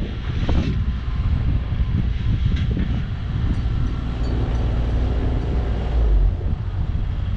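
JCB 8025 mini excavator's diesel engine running, a steady low rumble.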